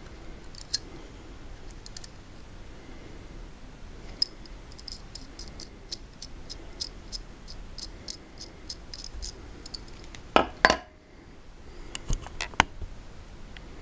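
Small steel adjustable wrench handled in the hands, giving a run of light metallic clicks, about three a second, then a loud clatter as it is set down on a wooden table, followed by a few softer knocks.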